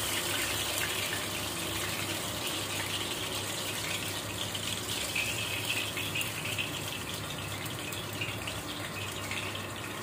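Fish deep-frying in hot oil in a wok: a steady sizzle with small crackles.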